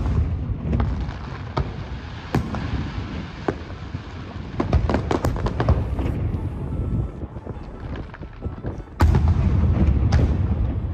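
Aerial firework shells bursting: a run of sharp bangs with a low rumble rolling on between them. The biggest bang comes about nine seconds in.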